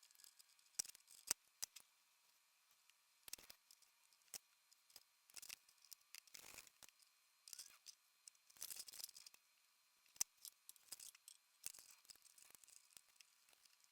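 Faint, scattered clicks and short snips of small hand tools working on an electrical cord, as the foot-pedal cord is cut, stripped and crimped.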